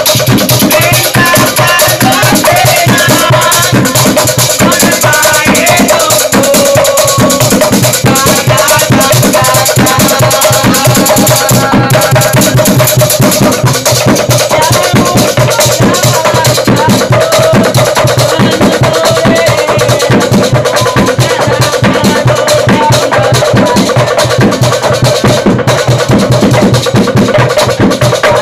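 Obrog sahur percussion: a skin-headed hand drum and a struck wooden log drum beating a fast, driving rhythm, loud and without a break.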